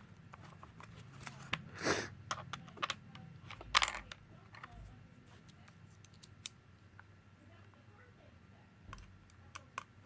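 Small tools and plastic and metal phone parts clicking and scraping while a smartphone is taken apart. Scattered light clicks, with a louder scrape about two seconds in and a sharper, louder one about four seconds in.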